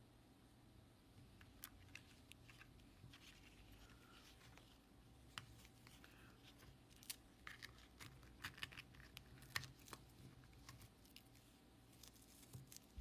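Near silence with faint, scattered light clicks and short rustles, more frequent in the second half.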